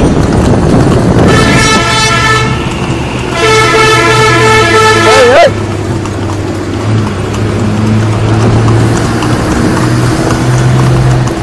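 Vehicle horn sounded in two long blasts, the second louder and ending in a short wavering glide. After that a vehicle engine runs with a low steady hum.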